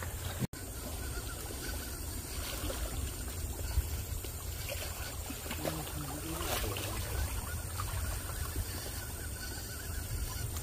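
River water lapping against shoreline rocks, with wind rumbling on the microphone. The sound cuts out for an instant about half a second in.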